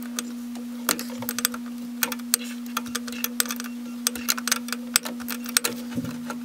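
Irregular sharp metallic clicks and ticks of a wrench and fingers working the brake-line fittings on a brake master cylinder, over a steady low hum.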